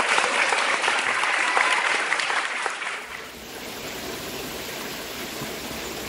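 Crowd applause, a dense patter of many claps, that cuts off about three seconds in. A quieter steady outdoor hiss follows.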